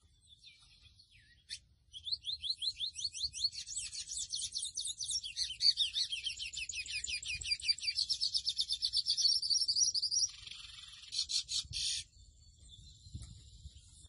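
Mochuelo (Sporophila seedeater) of the 'pico de plata azul' type singing. About two seconds in it starts a long, fast song of rapid sweeping notes, running some eight seconds. The song ends in a harsh buzzy phrase that stops abruptly near the end.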